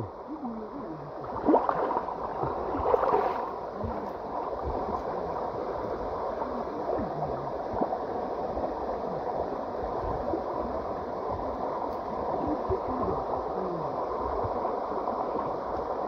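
River water rushing steadily, with a few faint voices in the first few seconds.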